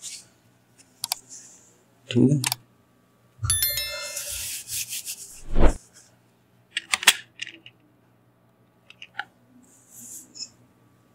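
Scattered clicks and a burst of rubbing, hissing noise ending in a dull thump, close to the microphone: handling noise from someone working at a computer desk.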